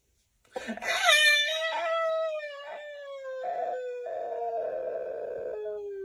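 A man's long, high-pitched howling noise, starting about half a second in and held as one drawn-out tone that slowly falls in pitch. It is a silly noise made to hush a fussing baby.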